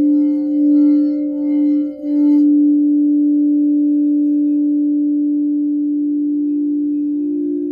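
Crystal singing bowls sounding a deep steady hum with a second tone above it. The tone swells and wavers for the first couple of seconds while the rim is played with a mallet, then rings on evenly and slowly fades. Near the end a second, slightly higher bowl tone comes in.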